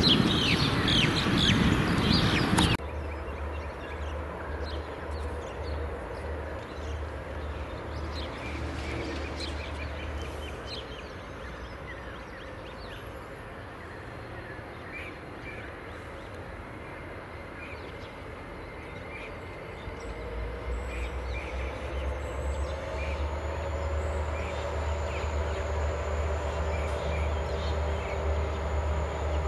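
Diesel locomotives hauling an empty coal train approach with a low engine rumble that grows louder from about twenty seconds in, while birds chirp. A louder stretch of noise cuts off about three seconds in.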